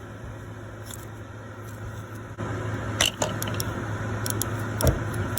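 Hand tools clinking against metal parts under a car: a handful of sharp clicks in the second half and a heavier knock near the end, over a steady low hum.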